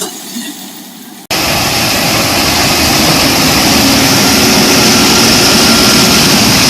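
Corn harvester running hard, a loud, steady engine and machinery roar that cuts in suddenly about a second in after a quieter stretch.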